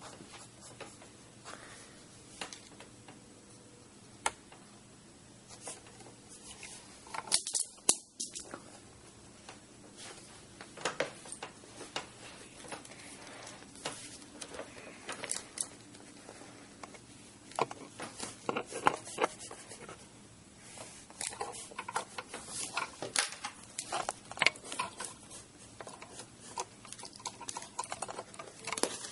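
Pencil scratching on paper in short, irregular sketching strokes, busier in the second half.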